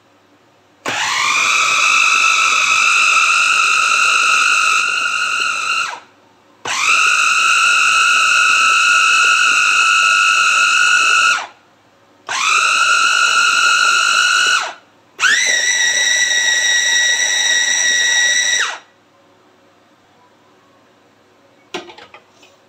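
Electric mini chopper's motor whining in four runs of a few seconds each, each one spinning up quickly at the start, as it grinds cooked mutton into the haleem wheat mash; the last run is higher-pitched. A brief clatter of the glass bowl near the end.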